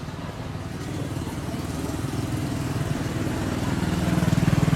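A small vehicle engine running with a quick, even firing beat, growing steadily louder.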